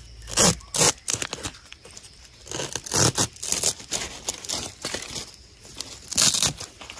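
Close rustling, crackling and tearing of plant stems and leaves being broken and handled, irregular, with the sharpest cracks about half a second in, just under a second in, around three seconds and about six seconds in.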